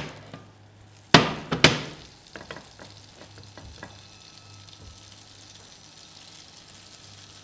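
Two loud knocks about a second in, then butter crackling quietly in a hot frying pan as bacon-wrapped scallops are laid into it.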